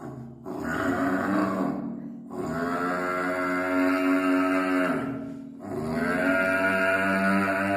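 A calf bawling: three long, drawn-out moo-like calls, each held steady for about two to three seconds with short breaks between.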